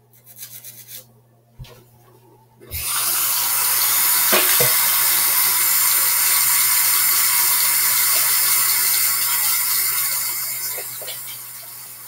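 A toothbrush scrubbing briefly and a couple of knocks, then a bathroom tap turned on about three seconds in, with water running steadily into the sink and easing off near the end.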